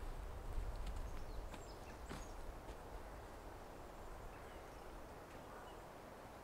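Faint woodland ambience: a low wind rumble on the microphone that fades after the first second or so, a few small bird chirps, and soft footsteps on a pine-needle forest floor.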